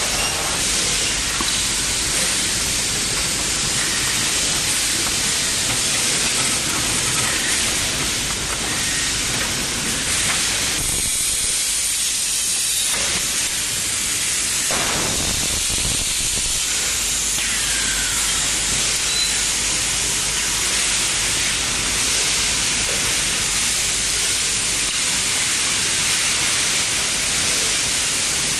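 Steady hiss of factory background noise from machinery in a large hall, even and unbroken, with no distinct machine rhythm standing out.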